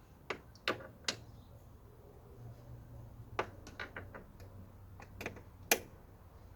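Irregular sharp clicks and knocks of car interior parts and hand tools being handled and fitted during reassembly, about eight in all, the loudest near the end.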